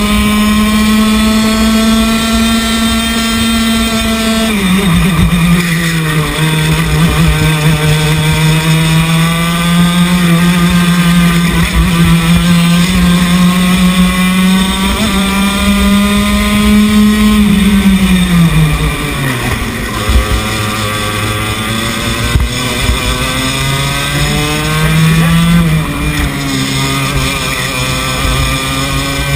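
A racing kart's two-stroke engine running hard, heard onboard, its pitch dropping in steps and climbing again as the revs fall and rise around the lap. A single sharp knock comes about twenty seconds in.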